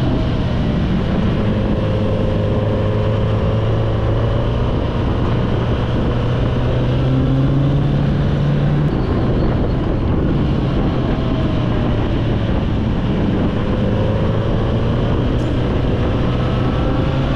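Motorcycle engine running steadily at riding speed, heard from on board the bike with a constant rush of wind noise; the engine note rises and falls slightly a few times.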